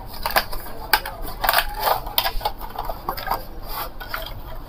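Small cardboard box being opened by hand: scraping and rubbing of cardboard, with irregular small taps and clicks as the packaging is handled.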